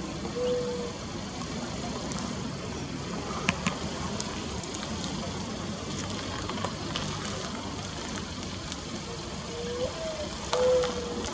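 Mourning dove cooing with soft, owl-like hoots. One coo comes right at the start; near the end a rising note leads into a steady coo, the opening of its next song. A steady background hiss runs underneath.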